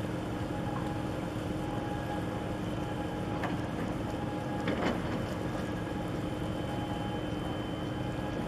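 Steady rumble and machinery hum of a large 8,800 TEU container ship under way at slow speed, mixed with wind and water noise. Two brief knocks come near the middle.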